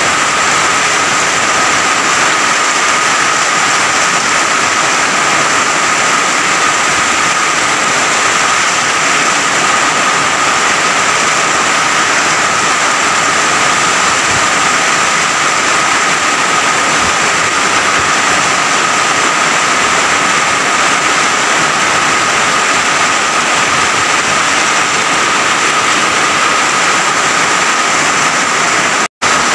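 Heavy tropical downpour: a loud, steady rush of rain pouring onto roofs and wet ground in a windy storm, with a steady high tone underneath. The sound cuts out for a moment near the end.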